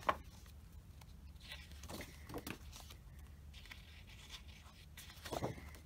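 Sheets of paper being turned over by hand: a short click at the start, a couple of soft paper rustles around two seconds in, and a louder rustle near the end.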